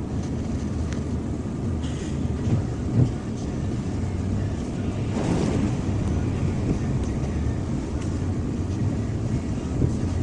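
A large vehicle engine running steadily, with a knock about three seconds in and a short rush of noise about five seconds in.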